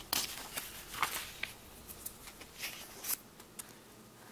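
Pages of a paperback picture book being handled and turned: a string of short, crisp paper rustles and flicks, the loudest right at the start.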